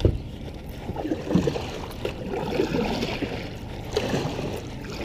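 Kayak paddle strokes dipping and splashing in calm lake water, a few strokes with water trickling off the blade between them.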